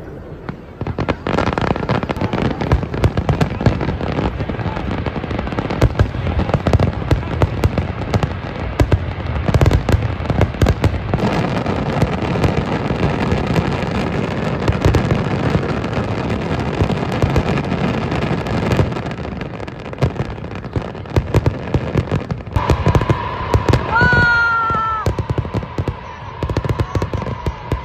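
Fireworks going off in a dense barrage, many cracks and bangs overlapping without a break, easing a little in the last third. Near the end a steady high tone joins, with a short sliding whistle about two thirds of the way through.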